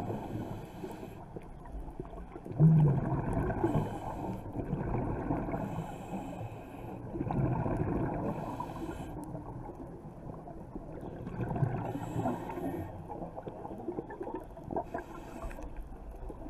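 Underwater sound of a scuba diver breathing through a regulator: bursts of exhaled bubbles burble out about every three to four seconds over a steady low rumble.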